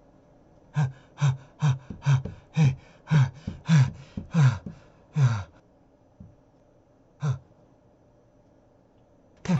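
A person coughing: a fit of about ten quick, harsh coughs, roughly two a second, then a single cough a couple of seconds later.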